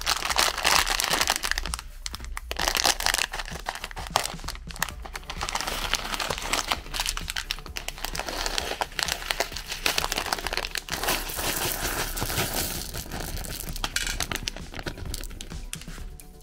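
Crinkly plastic candy packets being handled, squeezed and torn open, a dense run of irregular crackling and rustling.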